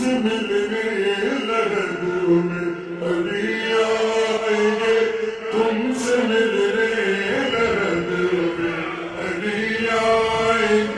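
Slowed-down, reverb-heavy recording of a Shia qasida sung by male voice in a chanting style, with long held notes that bend slowly in pitch and no clear words.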